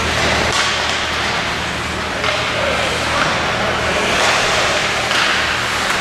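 Ice hockey game sound in a rink: a steady rush of noise that swells now and then, with a few sharp knocks of sticks and puck over a low hum.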